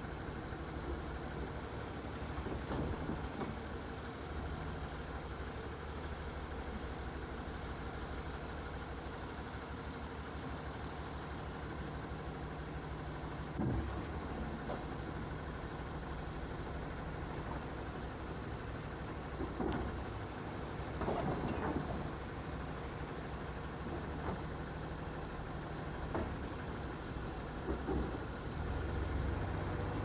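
Automated side-loader garbage truck running, its hydraulic arm dumping a cart and lowering it back down, with a few sharp clunks. The engine rises near the end as the truck pulls away.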